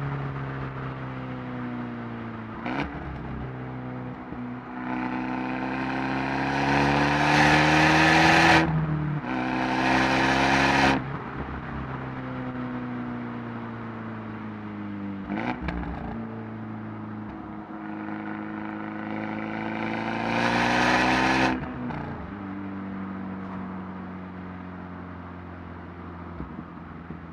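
Abarth 124 Spider's turbocharged 1.4-litre four-cylinder through its Monza exhaust, heard at the tail of the car while driving. The revs climb hard twice, the first pull broken by an upshift, and fall away each time the throttle is lifted, with short sharp cracks from the exhaust as the revs drop, about three seconds in and again in the middle.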